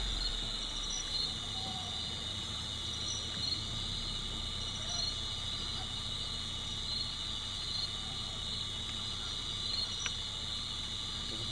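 Steady chorus of night insects, crickets trilling at several high pitches, over a low steady hum.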